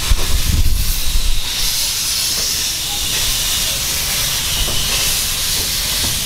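Narrow-gauge steam locomotive hissing steam steadily as the train moves off, with a low rumble in the first second and a half.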